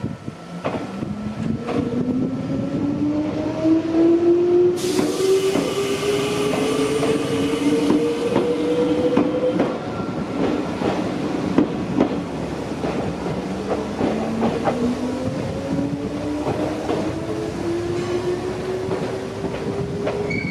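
Mizuma Railway 1000 series electric trains pulling out in turn. The traction motor whine rises in pitch as one accelerates through the first half, and a second rising whine follows from about halfway, over repeated clicks of wheels on the rails.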